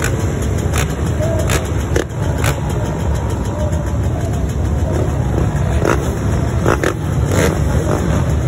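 Several small dirt bikes running together, a steady low engine rumble with a few short sharp clicks.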